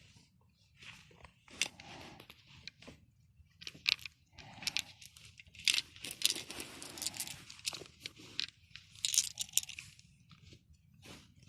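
Irregular rustling, crinkling and sharp clicks of objects being handled close up.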